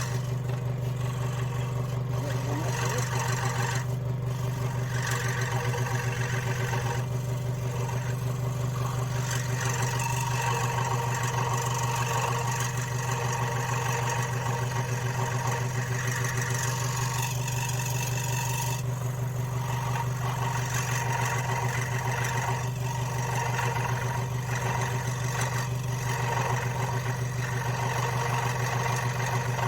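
Scroll saw running at a steady speed, its motor humming and its blade stroking rapidly up and down as it cuts a letter shape out of a piece of wood.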